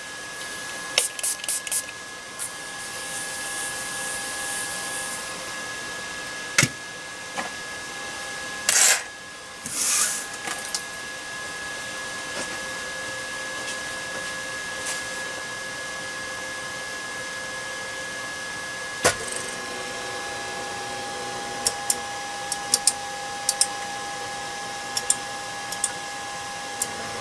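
FLSun Q5 delta 3D printer running, with a steady hum made of several fixed tones. From about two-thirds of the way through, an added steady whine joins as the carriages drive the effector up the towers. Scattered sharp clicks and knocks sound throughout, a cluster of them near the end.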